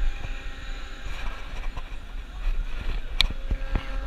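Samurai amusement ride's machinery with a steady low rumble and faint hum, picked up by a camera mounted on the ride's arm. There are scattered small clicks, a sharp click about three seconds in and a couple of knocks just after it.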